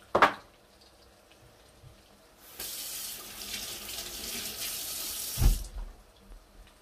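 A kitchen water tap runs for about three seconds, turned on a couple of seconds in and cut off abruptly, with a low thud just before it stops. A short, sharp sound comes right at the start.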